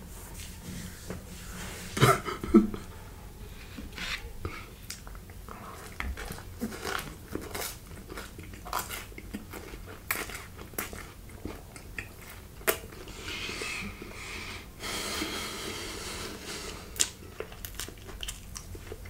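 Close-miked eating sounds: chewing with wet mouth smacks and irregular clicks, a creamy Alfredo noodle sucked in with a longer slurp partway through, and finger licking near the end.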